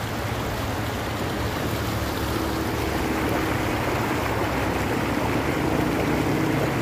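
Shallow river rushing steadily over rocks and gravel, with a faint steady engine hum underneath from about two seconds in.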